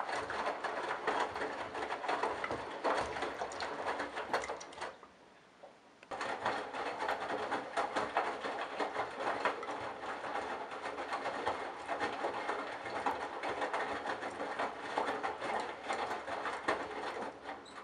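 Candy Bianca washing machine running, its motor turning the drum with a load of towels and bathrobes, with a busy rattle over a steady motor tone. It stops for about a second about five seconds in, starts again, and stops at the end.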